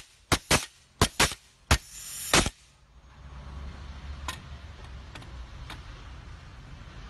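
A handheld lead-clamping tool snapping shut on metal sleeves along a wire: about seven sharp metallic clicks, some in quick pairs, over the first two and a half seconds, then a few faint ticks.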